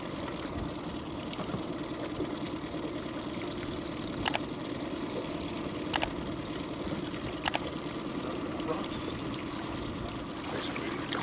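Steady water sounds around a small fishing boat, with three sharp clicks about a second and a half apart near the middle: the mouse-click sound effect of an animated subscribe button.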